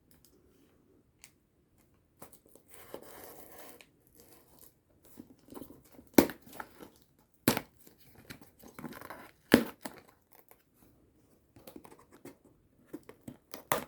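A parcel being slit and torn open with a watch case-back opener: scraping and tearing of tape and cardboard, with three loud sharp snaps, after about two seconds of near quiet.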